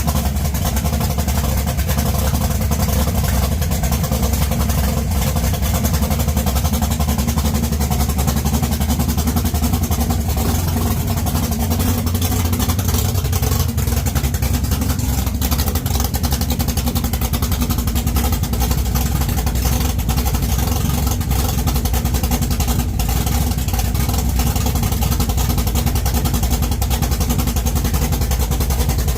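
The 1969 Camaro drag car's engine running steadily.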